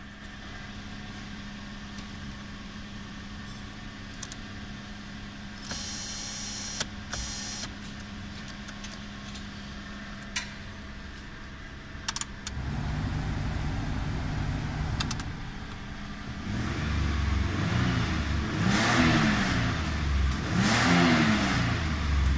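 Toyota Land Cruiser Prado's 3.4 L petrol V6 (5VZ-FE) running, heard from inside the cabin. It hums steadily at first and gets louder about halfway in. In the last few seconds it is revved up and back down several times in quick blips.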